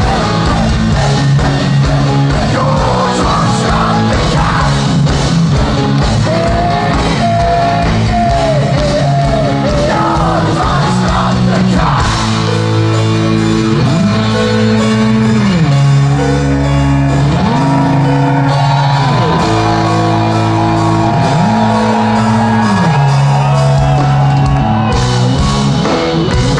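Heavy metal band playing live through a concert PA: distorted guitars holding chords over drums, with a sung vocal line.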